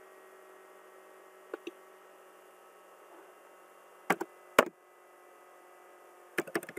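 Computer mouse clicks and keyboard key taps over a faint steady hum: two soft clicks about a second and a half in, a louder few clicks about four seconds in, then a quick run of taps near the end.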